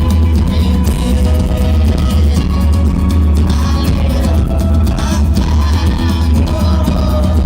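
Rock music with electric guitar, a steady bass line and singing.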